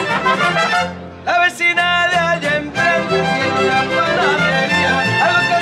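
Mariachi band playing live: violins carry the melody over strummed guitars, with a short break about a second in before the violins come back in with long and sliding notes.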